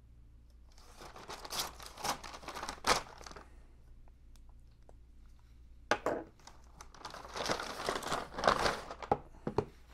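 Shipping envelope being slit with a knife and torn open by hand: two spells of rustling, crinkling and tearing, with a few sharp clicks in the second.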